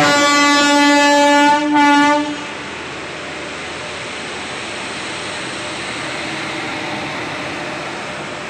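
WAP7 electric locomotive's air horn sounds a long blast and then, after a brief break, a short second blast as the train departs. The locomotive then rolls slowly past with steady running noise.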